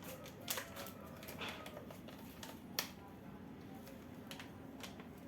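A few light clicks and taps of kitchen utensils and containers being handled, the sharpest one near the three-second mark.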